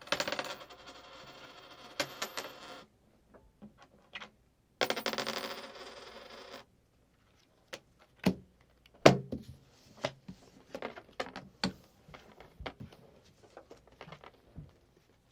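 Playing cards being shuffled and coins being handled: two runs of rapid fluttering clicks, one at the start lasting under three seconds and one about five seconds in, then scattered separate clicks and clinks, the sharpest about nine seconds in.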